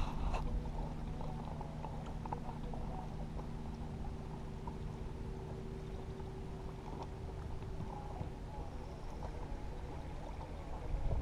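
Water lapping and gurgling against a fibreglass bass boat's hull, with a steady low hum underneath and a brief rattle at the start.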